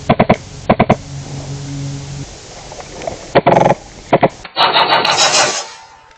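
Airsoft guns firing short full-auto bursts of rapid shots, several bursts of well under a second each, with a denser, harsher stretch about a second long near the end.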